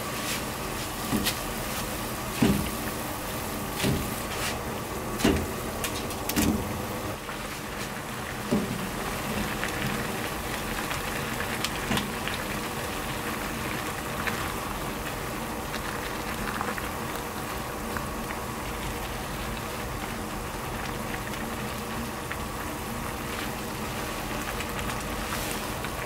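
Cooking sounds: a steady hiss and hum, with half a dozen short knocks of cookware in the first nine seconds or so.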